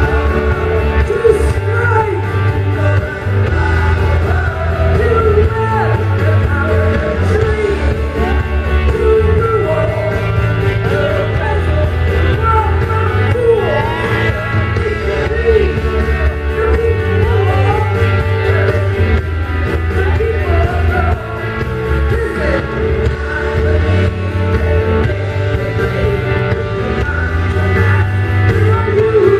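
Live rock band playing, with electric guitars and a steady bass under a woman singing lead.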